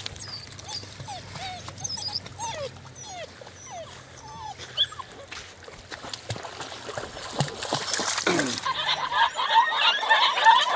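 Eight-week-old Deutsch Langhaar puppies whimpering, a string of short, high, falling whines. In the second half a crunching clatter of paws on river stones builds up and becomes the loudest sound.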